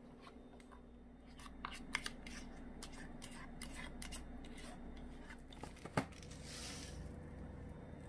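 Kitchen scissors snipping repeatedly: a run of short sharp clicks, the loudest about six seconds in, followed by a brief hiss.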